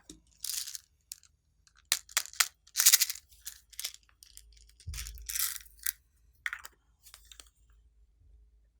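Glossy slime being squished and worked by hand: a string of sharp sticky clicks and pops with several longer crackling squishes.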